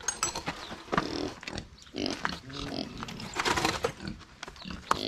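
A pig grunting in short, irregular bursts, with its snout down at the ground.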